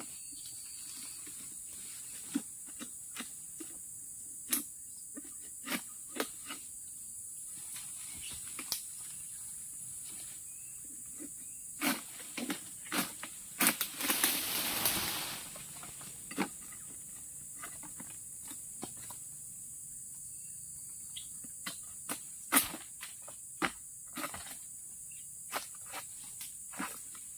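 A steady high-pitched insect chorus, broken by scattered sharp knocks and scrapes from a long oil-palm harvesting pole worked against the palm's crown, with a louder rush of rustling noise lasting about a second and a half just past the middle.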